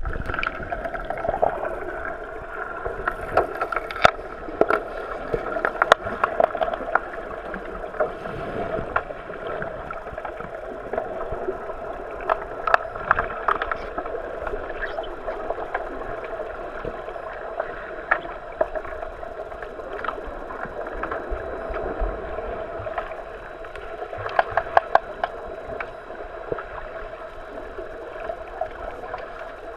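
Muffled underwater pool noise during an underwater hockey game, heard from beneath the surface: a steady churning water sound from the swimming players, with scattered sharp clicks and knocks that come in flurries several times.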